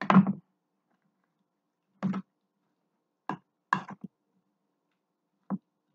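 About five short knocks and clunks of cookware, utensils and dishes being handled on the counter, spaced a second or so apart; the first is the loudest.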